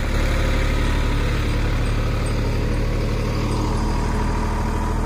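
Diesel farm tractor engine running steadily at close range, a loud, even low hum that holds without change.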